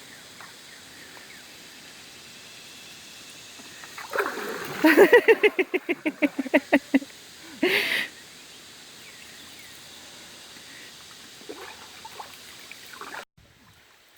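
River water flowing steadily. Near the middle, a person's voice breaks into rapid pulses for about two seconds, followed by one short cry. The sound cuts off just before the end.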